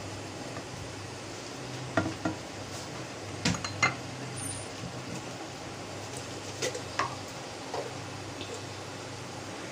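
A metal utensil clinks against a cooking pot about seven times in scattered pairs while garlic and ginger are stirred and cooked in vinegar water, over a steady low hum.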